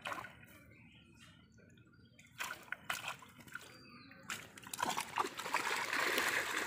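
Pond water dripping and splashing as a fishing net full of fish is hauled up at the bank; from about five seconds in, the fish thrash in the net and the splashing becomes loud and continuous.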